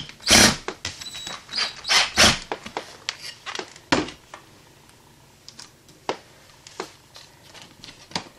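Cordless drill driving the receptacle's Phillips mounting screw home in a few short bursts, then scattered light clicks and knocks of handling.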